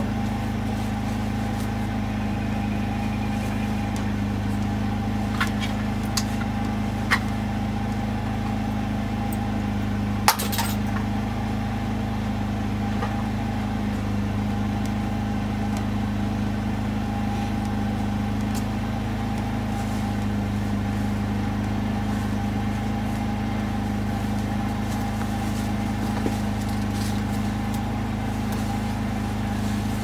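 A steady low machine hum, with a few short sharp clicks, the loudest about a third of the way in.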